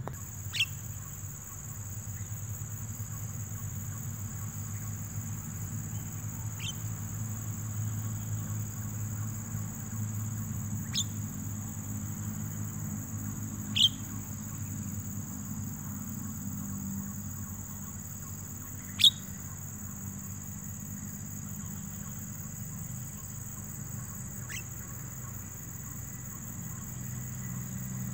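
A steady, high-pitched insect drone, with short downward-sliding bird whistles every few seconds, six in all. The two in the middle are the loudest.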